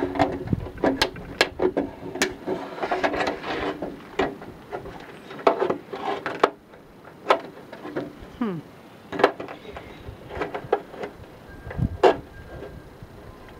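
Tin snips cutting out the downspout outlet hole in a rain gutter, nearly finished: irregular sharp snips as the blades close on the gutter sheet, with short pauses between cuts.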